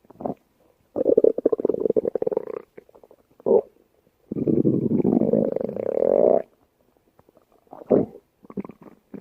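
A stomach growling: two long rumbles of about two seconds each and several short ones, with quiet gaps between.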